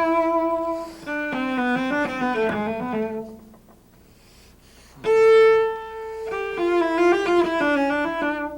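Cello playing two short phrases of a left-hand position exercise: each starts with a held note and then runs through a few quick notes stepping downward, with the lower notes sounded by the left-hand fingers plucking the string. The second phrase starts on a higher note after a short pause.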